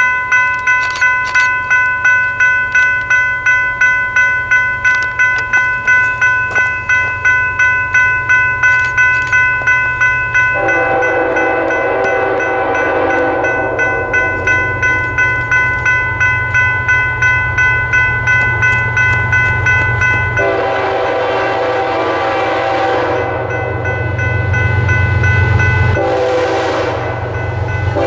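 Two General Signals Type 3 electronic crossing bells ringing rapidly, about two strokes a second. From about ten seconds in, the approaching BNSF ES44C4 locomotive's air horn sounds in long blasts for the crossing, with a low rumble from the oncoming train growing beneath it.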